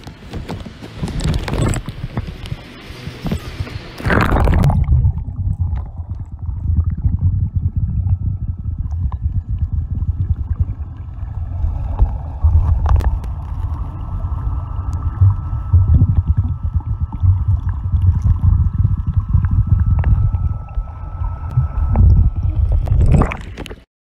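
Moving water, gurgling and sloshing: a bright hiss for about the first four seconds, then a deep, uneven rumble with scattered clicks and a faint steady high tone in the background, cutting off abruptly near the end.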